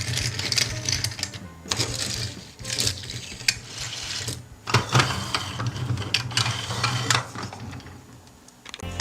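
Irregular clicking and rattling of plastic toy parts being handled, with a ratchet-like mechanical run of clicks.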